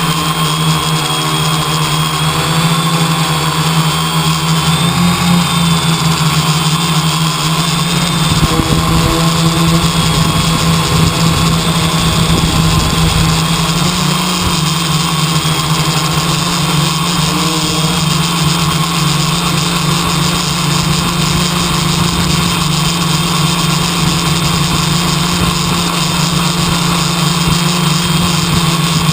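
An engine running steadily at an even speed, a constant low hum with higher tones above it. From about eight seconds in, a flickering low rumble is added underneath.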